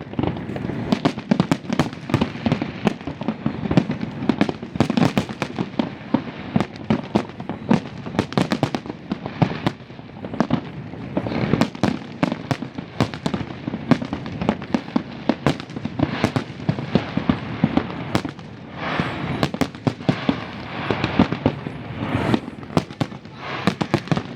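Fireworks display: a dense, continuous barrage of bangs and crackling bursts, many overlapping, with no pause.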